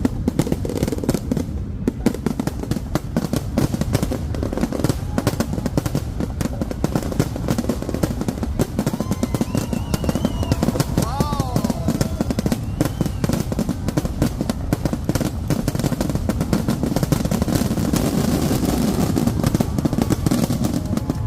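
Fireworks going off in a continuous rapid barrage: dense, unbroken bangs and crackles over a low rumble, with crowd voices beneath.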